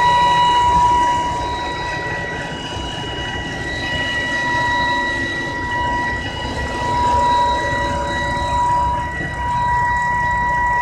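2010 BMW E90 325i running, with a steady high-pitched whine and its overtones over the low engine rumble. It is the intermittent whine the owner reports, which comes back day after day and goes away once the engine is switched off and restarted.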